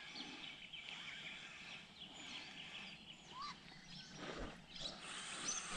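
Quiet outdoor ambience with a few faint, short bird chirps.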